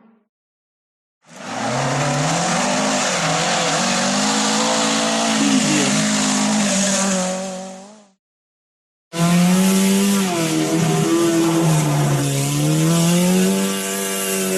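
Two separate recordings of a rally car engine running hard at speed, each about seven seconds long with a second of silence between them. The engine pitch rises and falls with throttle and gear changes, over a strong hiss.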